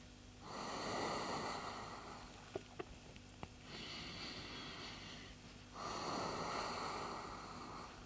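A person breathing slowly and deeply through a held yoga stretch: two long, fuller breaths, one starting about half a second in and one near six seconds in, with a quieter breath between them. A few faint clicks come between about two and a half and three and a half seconds in.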